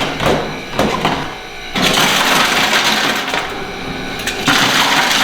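Ice cubes pouring and clattering into a trash can, after a few knocks; the clatter sets in about two seconds in and gets louder near the end.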